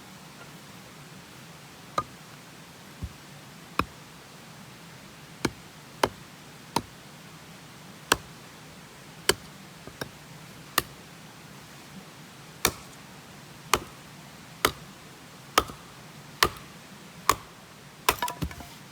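Hand axe chopping firewood: sharp single strikes of the blade into wood, roughly one a second, with a quick run of several strikes near the end.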